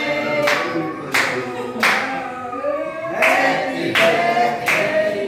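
A group of people singing together unaccompanied, clapping along in a steady beat.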